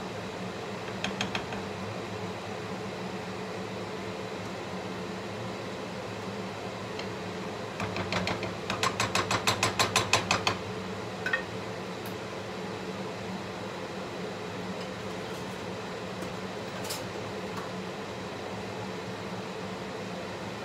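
Range hood fan humming steadily over the hob. Around eight to ten seconds in comes a quick run of about a dozen light knocks: a wooden spatula tapped against the rim of the frying pan. A few single knocks fall elsewhere.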